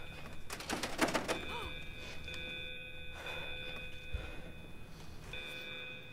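A door handle and lock clicking and rattling for about a second, starting about half a second in, then a dull thump about four seconds in. Steady high tones run behind.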